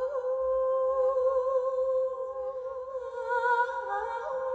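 A voice humming long held notes as a wordless musical vocal, the pitch stepping up or down now and then with a slight waver.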